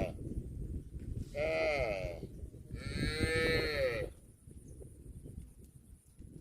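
Cattle mooing: two fairly high-pitched calls, the second longer, about a second and a half in and about three seconds in, over a low background rumble.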